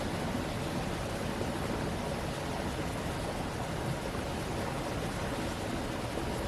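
A stream flowing with a steady, even rush of water.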